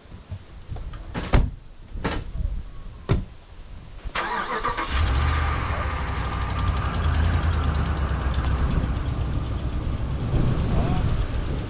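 Three doors on a Ram pickup truck slam shut, about a second apart. Then the truck's engine starts about four seconds in and keeps running as the truck pulls away.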